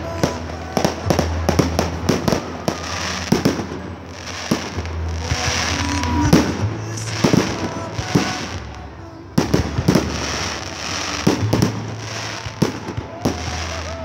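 Fireworks display: a rapid, irregular series of sharp bangs from aerial shells bursting overhead.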